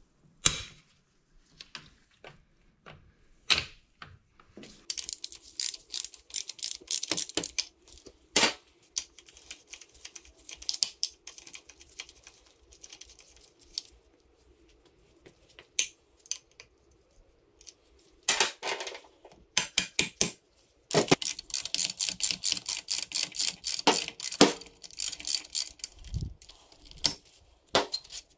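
Hand ratchet clicking in rapid runs while bolts on a Yamaha PW80's engine side cover are worked loose, with single metallic clinks of tools between the runs.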